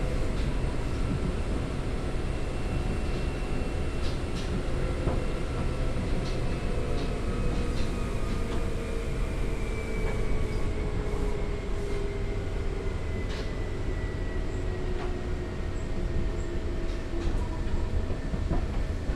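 Seibu 2000 series field-chopper electric train heard from inside a motor car, traction motor and gear whine falling slowly in pitch over steady running noise as the train slows. Occasional clicks come from the wheels on the track.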